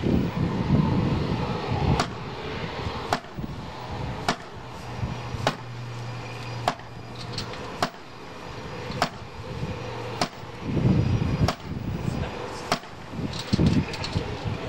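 Sledgehammer blows striking recycled plastic in an impact test: about ten sharp, evenly spaced strikes, roughly one every second and a bit, over a low background rumble.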